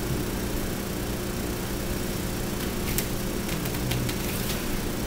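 Twist-to-tighten tension curtain rod being turned tight against the walls: a run of short clicks and creaks about three to four and a half seconds in. Under it a steady low background hum runs throughout.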